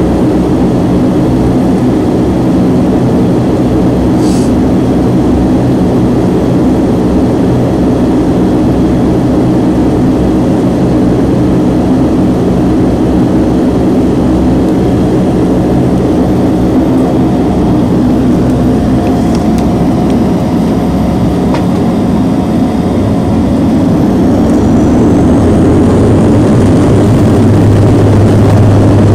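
Cabin sound of a Bombardier Q400's turboprop engines and propellers running: a loud, steady drone heard from inside the aircraft. About 24 seconds in it grows louder, with a deeper propeller hum and a rising high whine as power comes up at the runway before takeoff.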